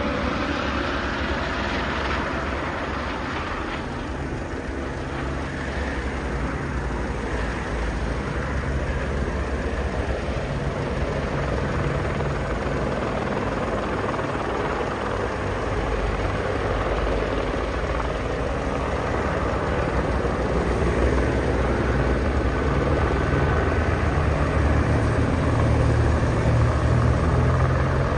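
Firefighting helicopter flying nearby: a continuous rotor and engine drone that grows somewhat louder over the last several seconds.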